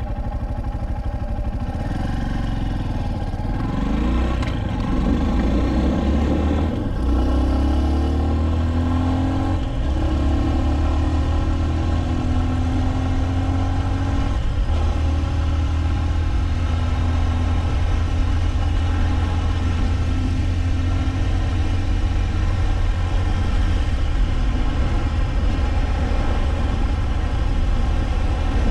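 Honda CB223S's air-cooled 223 cc single-cylinder engine pulling away and accelerating through the gears, rising in pitch with shifts about 4, 7 and 10 seconds in. It then runs at a steady cruise.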